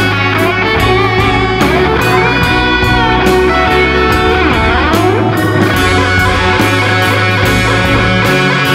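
Rock music with electric guitar playing bending lead notes over a steady bass line and drums.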